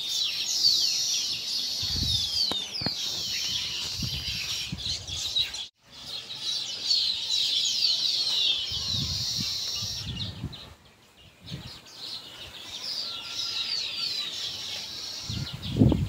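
A flock of zebra finches chattering: many short, high, falling chirp calls overlapping, with a sudden break about six seconds in and a quieter spell later. A few low thumps are heard, the loudest near the end.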